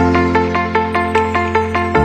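Background electronic music with a steady beat of about four pulses a second over a held bass note.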